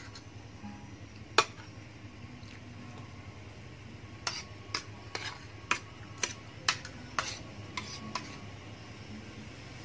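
Metal spoon and fork clinking and scraping against a plate while rice is scooped up. There is one click about a second and a half in, then a quick series of about ten clicks from about four to eight seconds in.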